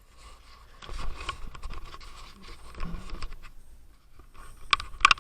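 Handling noise from a handheld camcorder: rustling and scraping on the body with a faint steady whine. A few sharp clicks come near the end.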